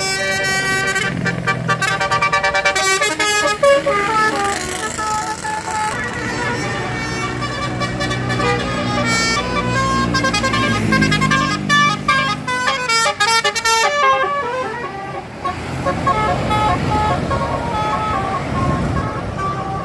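Bus telolet horns: several air-horn trumpets tooting quick stepped melodies over bus engines and road traffic. About two-thirds of the way through the tooting thins out, leaving mostly traffic noise with a few fainter horn tones.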